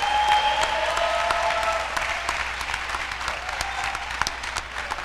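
Audience applauding, loudest in the first couple of seconds and thinning out toward the end.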